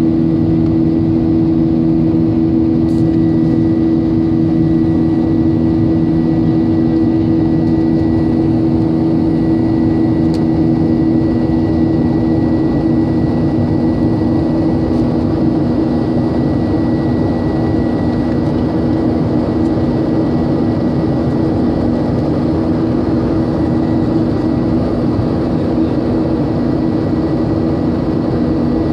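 Airliner cabin noise in flight: the steady drone of the engines and rushing air, with a constant low hum and a faint high whine held throughout.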